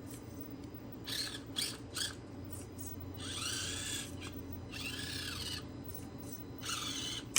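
Axial SCX24 XC-1 micro RC crawler's small electric motor and gears whining in short bursts as the throttle is blipped, several quick ones, then three longer whines that rise and fall in pitch.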